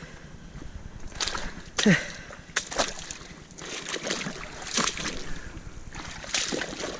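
Boots wading through a shallow, seaweed-choked rock pool: water sloshing and splashing with about half a dozen steps. About two seconds in, one louder splash carries a short sound that falls in pitch.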